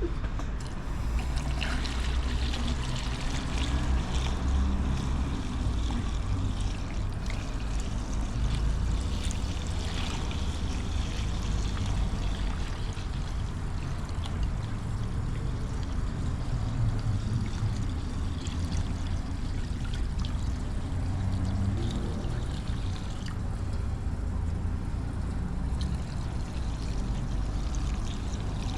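Fuel being poured steadily into a putty-patched car fuel tank, a continuous pouring and trickling flow, as the patch is tested for leaks.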